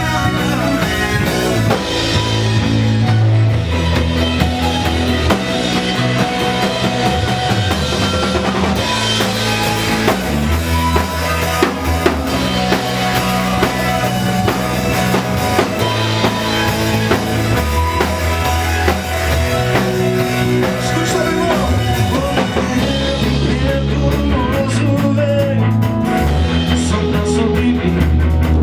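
Live Christian worship band playing an upbeat song, with a drum kit keeping a steady beat and bass notes held underneath.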